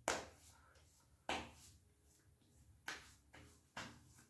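A few faint, short knocks, each a second or so apart, with near silence between them.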